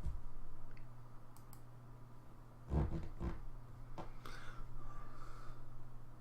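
A few scattered clicks at a computer, with a louder pair of knocks about three seconds in, over a steady low hum.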